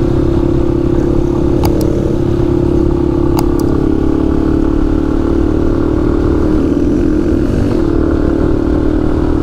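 Yamaha XT250 trail bike's single-cylinder engine running at a steady cruise, heard from on board, with wind and road noise and a couple of faint ticks.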